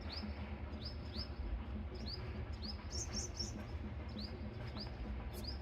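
Small birds chirping: short, high chirps repeating about twice a second, over a faint low background rumble.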